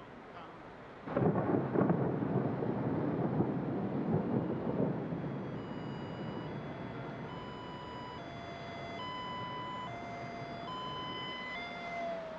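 Film soundtrack: a sudden loud rumble about a second in, dying away over the next few seconds, then a slow run of held tones stepping from pitch to pitch about once a second, with a short gliding tone near the end.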